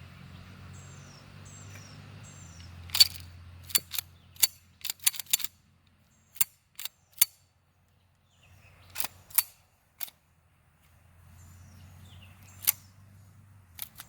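A run of sharp metallic clicks and clacks, about fifteen in all, several in quick succession, from close handling of gear. Three short falling bird chirps come about a second in over a low background hum.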